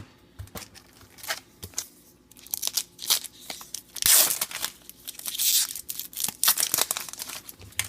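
A trading-card pack wrapper being torn open and crinkled by hand. It is a string of irregular rips and rustles that builds from about two seconds in and is loudest around the middle.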